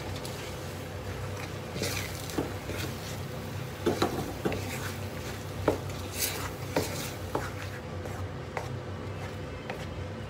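Wooden spatula stirring a thick cheese sauce in a frying pan, with irregular scrapes and knocks against the pan as shredded cheese is worked in.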